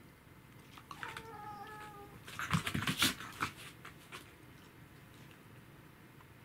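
A corgi and a cat face off: a short whining cry that falls slightly in pitch, then a loud, rough, noisy vocal outburst lasting about a second.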